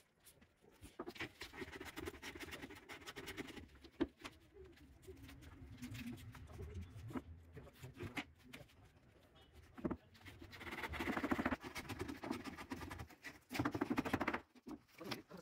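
Hand tools worked on plywood and wood strips: stretches of scraping and rasping lasting a second or two, one about a second in and several more from about ten seconds in, with a few light knocks in the quieter middle.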